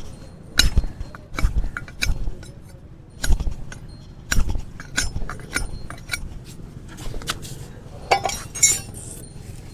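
Sharp metallic clinks and knocks from hoof-trimming tools working on a horse's hoof, coming irregularly about once a second, with two louder clusters near the end.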